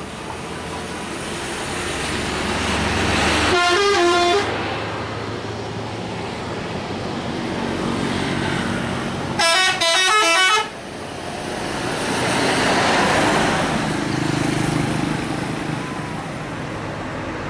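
Tour buses passing, their road noise swelling and fading, with two short bursts of the multi-note 'telolet' bus horn: a brief run of stepping notes about four seconds in, and a louder, longer run of rapidly changing notes about ten seconds in.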